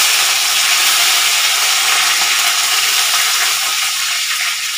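Curry leaves sizzling in hot coconut oil in a kadai, a loud steady hiss that eases a little near the end.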